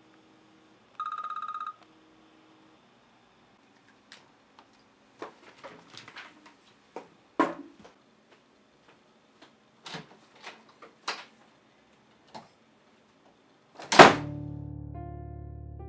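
An iPhone alarm plays one short pulsing beep about a second in. Then come scattered small knocks and rustles of someone moving about a room, a single loud thump near the end, and soft piano music starting right after it.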